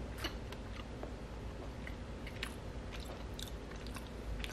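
A person chewing a piece of dark chocolate with the mouth closed: faint, with a few soft scattered clicks over a low steady hum.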